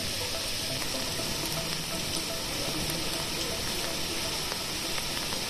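Heavy rain pouring steadily onto a flooded street, a dense even hiss.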